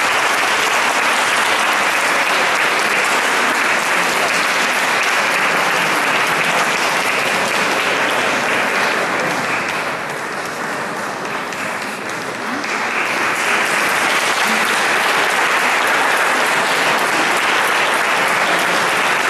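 Audience applauding steadily, easing off briefly about halfway through and then swelling again.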